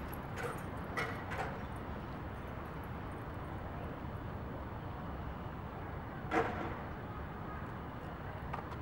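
Steady outdoor background rumble, with a few faint short sounds in the first second or so and one brief louder sound about six and a half seconds in.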